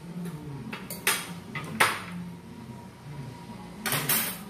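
Metal spoon and fork clinking against plates and a serving dish while serving food at a meal: a few sharp clinks, the loudest about two seconds in and a quick cluster near the end.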